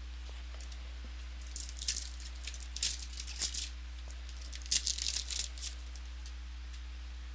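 Crinkling and tearing of a trading-card pack wrapper being opened, in two bursts of crackling about three seconds apart, over a steady low electrical hum.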